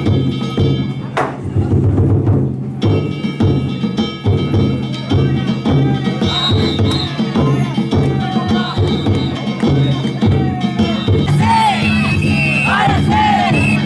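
Danjiri festival float's percussion playing: a taiko drum beat with ringing hand gongs. From about five seconds in, the pullers' calls join, growing into a loud chorus of shouts near the end.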